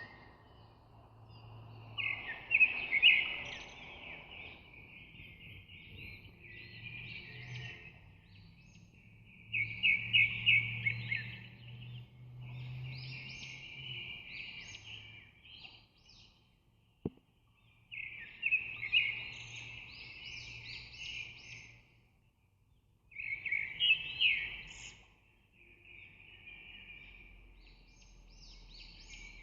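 Birds chirping and twittering in repeated phrases of a second or two, separated by short pauses, with a single sharp click near the middle.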